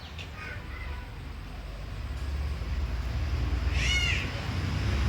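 One short, high animal call about four seconds in, its pitch rising then falling, over a low traffic rumble that grows steadily louder.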